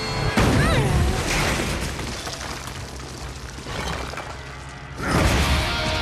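Movie fight sound effects: a sudden heavy booming impact with crashing debris about half a second in, with a high falling sound just after it, dying away over a few seconds. A second loud hit comes near the end, over the film's music.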